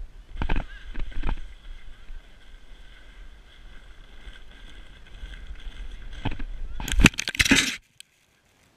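A sled run down a snowy hill heard from a camera close to the snow: steady wind rumble on the microphone and scraping over the snow, with a few sharp knocks in the first second and a half. About seven seconds in comes a burst of loud thumps as the camera tumbles in the snow, and then the sound cuts off.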